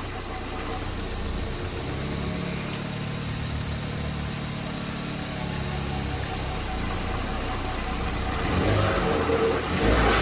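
Ford Escape's 1.6-litre EcoBoost turbocharged four-cylinder engine running steadily with the rebuilt 6F35 automatic transmission driving it, growing louder near the end.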